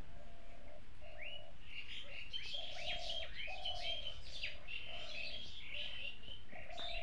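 Birds chirping, many short quick chirps that sweep down in pitch, over a short low note repeated about once a second.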